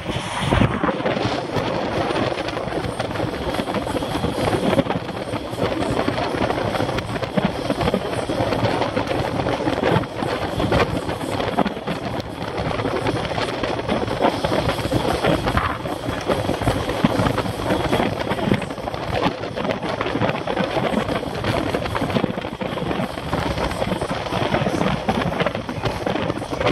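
Wind rushing and buffeting over the microphone of a camera on a road bike riding at about 24 mph, mixed with tyre and road noise.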